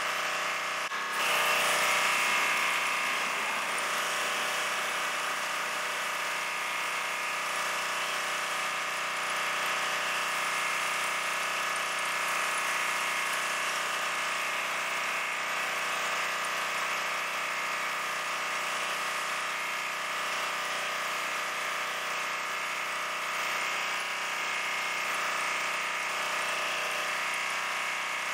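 Duromax XP2700PWS pressure washer's 5 HP gas engine running steadily. About a second in, the hiss of the high-pressure water spray starts and carries on.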